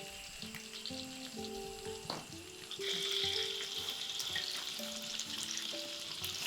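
Food frying in hot oil in a pan, sizzling. The sizzle grows louder about three seconds in, with a single sharp click about two seconds in.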